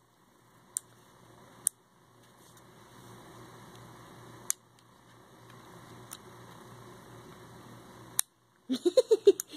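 Plastic switch on a fidget toy being flipped: sharp single clicks at uneven gaps, five in all, the strongest near the end.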